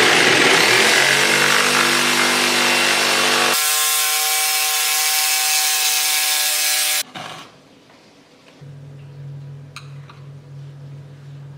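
Bosch corded jigsaw sawing through a board, the blade rasping steadily; the sound changes in pitch about three and a half seconds in. It stops abruptly about seven seconds in, leaving only a quiet low hum and a light tap.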